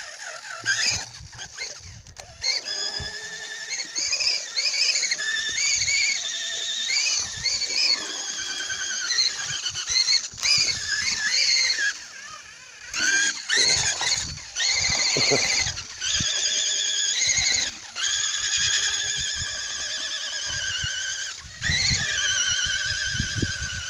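Electric drill spinning a wooden dowel in a water trough to wind up algae slime: a high motor whine that wavers in pitch as the load changes, dipping briefly a couple of times.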